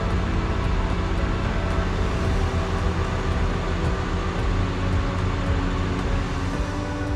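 Steady low mechanical rumble, with background music underneath.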